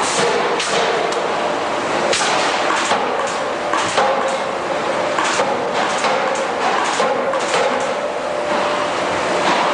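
Forge shop at work: forging hammers and presses striking plier blanks in irregular, frequent metal impacts. Under the strikes runs steady machinery noise with a constant hum.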